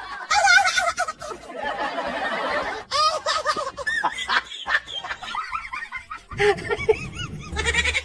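People snickering and laughing, with some voice sounds mixed in.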